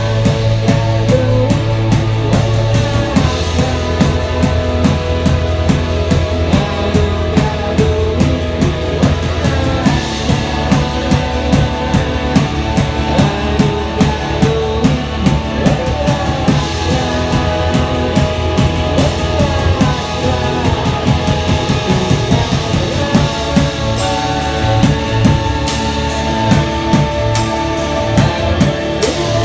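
Live band playing rock: a semi-hollow electric guitar and a drum kit over sustained low bass notes that change every few seconds. Cymbal crashes come more often near the end.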